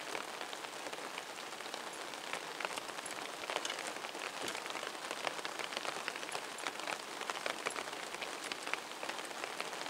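Heavy rain falling: a steady hiss broken by many separate drop taps.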